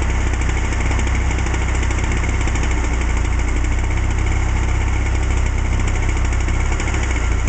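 Engine running steadily at an even speed, from the machinery working the ice harvest on the frozen pond.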